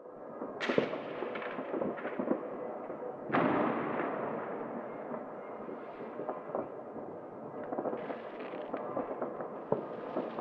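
New Year's Eve amateur fireworks and firecrackers going off across city streets: a continuous crackle of many scattered bangs and pops. Two louder booms, one under a second in and one about three and a half seconds in, each trail off with a long echoing tail.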